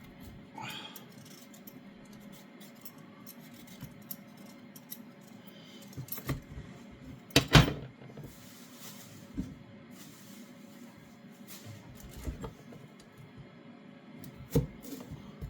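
Kitchen clatter: scattered knocks and clinks from vegetables and utensils being handled during vegetable preparation. The loudest knock comes about seven and a half seconds in, and another sharp one near the end.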